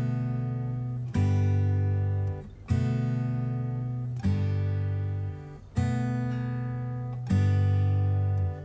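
Background music: acoustic guitar strumming chords, a new chord struck about every one and a half seconds and left to ring.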